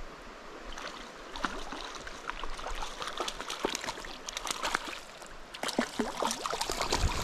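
Hooked trout splashing and thrashing at the surface of a shallow stream pool while being played toward the net: a run of short, quick splashes that come thicker in the second half, over the low wash of the creek.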